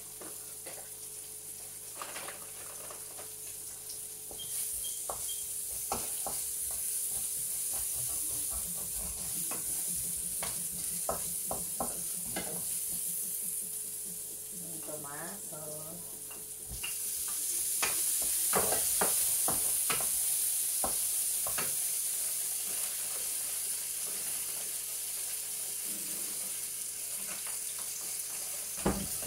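Food sizzling in oil in a frying pan, with the clicks and scrapes of a wooden spatula stirring it. The sizzle grows louder about four seconds in and again just past halfway.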